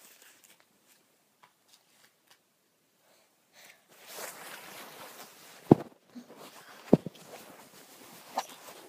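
Almost silent at first. About three and a half seconds in, close rustling starts as the phone camera is handled, with two sharp knocks a little over a second apart and a lighter click near the end.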